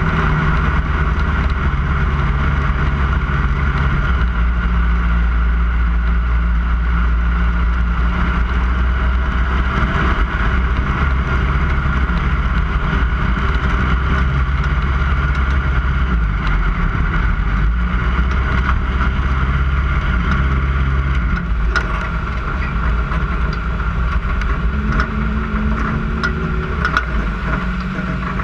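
Lightning sprint race car engine running continuously, its pitch stepping up and down every few seconds as the throttle changes, over a steady rushing noise.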